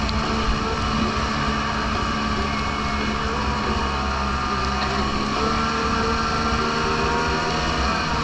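Snowmobile engine running steadily under way, heard from aboard the sled, its pitch lifting slightly a little past halfway.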